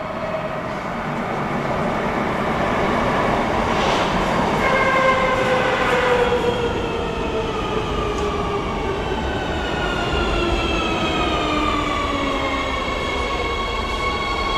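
Madrid Metro Serie 3000 electric train pulling into the station. A rushing approach grows louder, then the traction motors give a whine of several tones that falls steadily in pitch as the train brakes, levelling off near the end as it comes to a stop.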